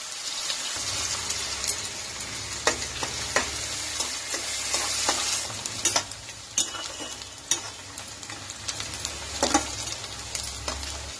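Chopped onions sizzling in hot mustard oil in a kadhai, stirred with a metal spatula that clicks and scrapes against the pan now and then. A low steady hum sits under the sizzle from about a second in.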